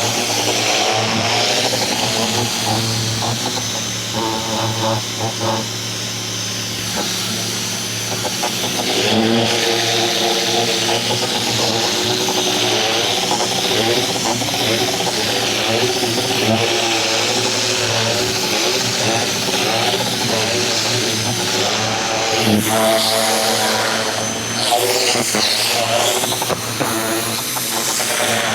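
Ryobi 2000 PSI electric pressure washer running steadily: a constant motor hum under the hiss of the high-pressure water jet, with a wavering whine that shifts as the spray works across the surface.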